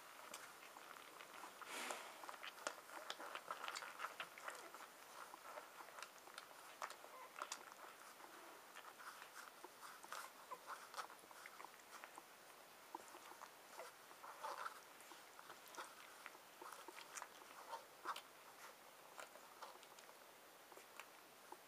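Six-day-old husky puppies suckling at their mother: faint wet smacking and clicking from many small mouths, with a few short squeaks, busier in the first half.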